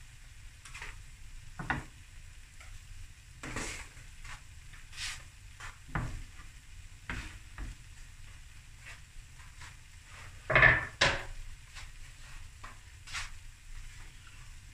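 Boerewors fried rice crackling in a pan on low heat, with scattered pops and ticks. A louder double clatter of kitchen things comes about ten and a half seconds in.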